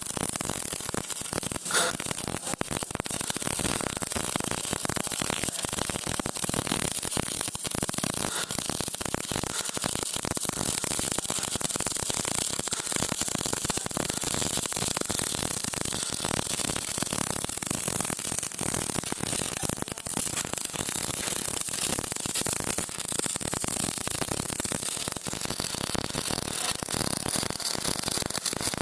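MIG welder arc crackling and sizzling continuously as a bead is laid, a dense steady spatter of fine crackles with no break.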